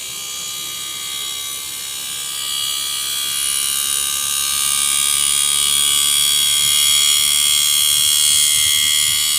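Panasonic inverter split AC compressor running under its inverter drive, a steady high-pitched electrical whine over a hum. It grows louder about two and a half seconds in as the compressor speeds up. It keeps running now that the defective part on the board has been replaced, instead of jerking for a second and stopping.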